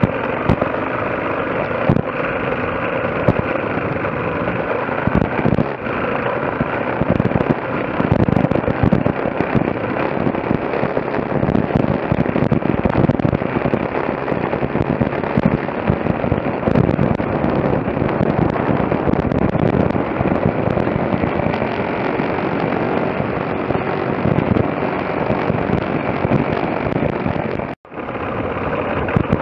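Dirt bike engines running under way on a trail, heard from an on-bike camera, with heavy wind buffeting and crackling on the microphone. The sound cuts out for a moment near the end.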